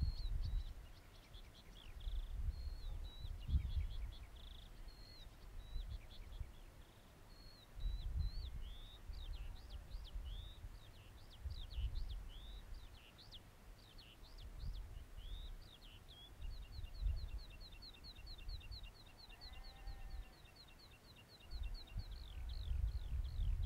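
Small birds calling in quick, high, down-slurred chirps, joined about two-thirds of the way through by a fast, even, high trill. Under them is a low rumble that swells and fades.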